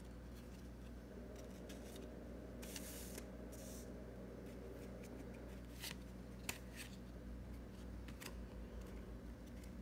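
Faint rustling and a few light clicks of trading cards being handled, set down and picked up from a table, over a steady low hum.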